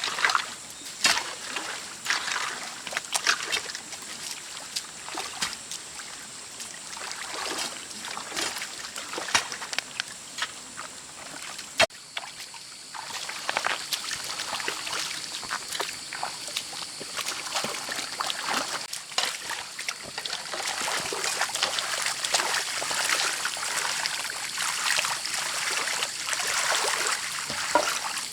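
Water in a flooded paddy field sloshing and splashing in irregular strokes, with trickling, as the waterlogged field is worked. About twelve seconds in there is a sharp click, after which a steady high hiss runs under the splashing.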